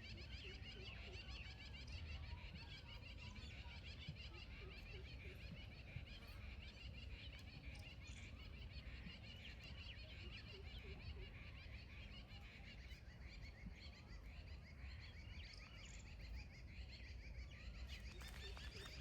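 Faint, continuous chorus of many small birds chirping over one another, over a steady low rumble.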